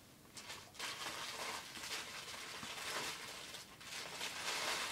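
Plastic packets of loom bands rustling and crinkling as someone rummages through a box of them, in short irregular bursts.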